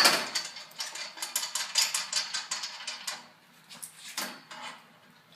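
8-inch adjustable wrench being worked against a stage light's metal hardware, taken off and refitted again and again. A loud click at the start is followed by a quick run of metallic clicks and clanks for about three seconds, then a few more near four seconds.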